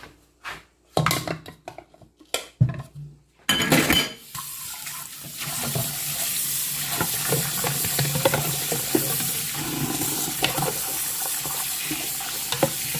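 Several sharp knocks and clinks of eggs and a utensil against cookware, then tap water running steadily into a bowl of boiled eggs from about three and a half seconds in, with occasional clinks.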